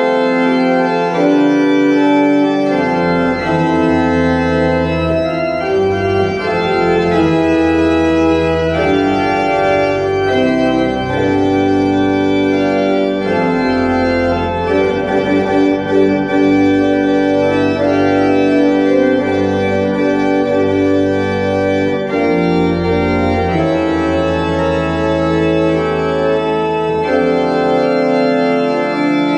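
Pipe organ playing a hymn in held full chords that change every second or two, with a deep pedal bass that comes in about a second in and drops out near the end.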